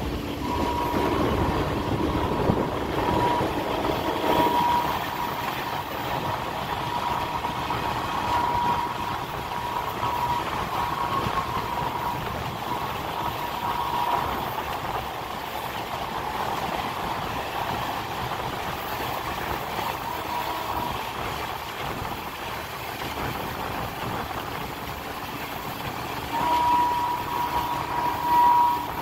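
Passenger train running, heard from on board: a steady rolling noise, with a thin high tone that comes and goes through the first half and returns, louder, near the end.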